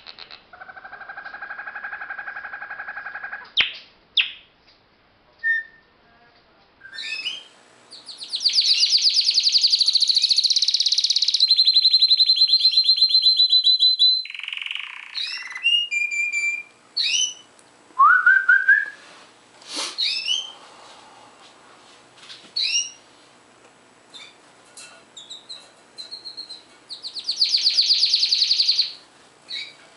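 Birds singing and calling: several long, fast trills, the longest lasting about six seconds, among short chirps and brief whistled notes.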